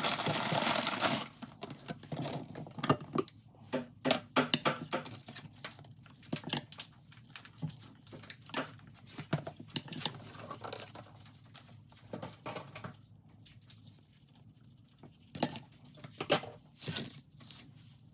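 Dishes and utensils clinking and knocking as food is plated, with a crinkling rustle in the first second.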